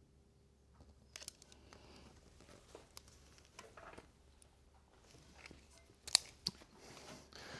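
Quiet handling sounds: small clicks and scrapes as a folding ruler is worked against an ash blank, with a sharper click about six seconds in.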